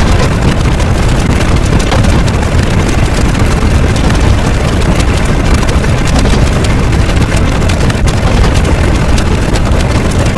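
A loud, steady rumbling noise, heaviest in the low end, with no clear tone or rhythm.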